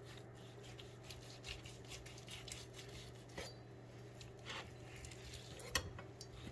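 Knife slicing through a smoked rib roast: faint scraping strokes and a few light clicks of the blade, over a steady low hum.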